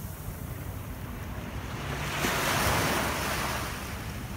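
Ocean surf washing in: a steady rush of water that swells into one louder wash about two seconds in, then eases off.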